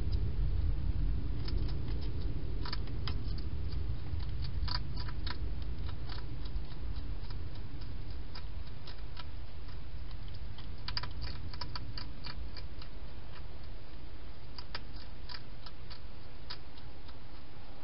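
Hedgehog eating from a bowl inside a plastic feeding box: irregular sharp clicks of crunching food, coming in short clusters, over a steady low hum.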